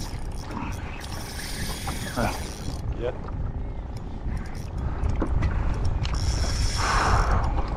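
Spinning reel's drag buzzing as a hooked tripletail pulls line, in two spells, one about a second in and one near the end, over a low rumble of wind.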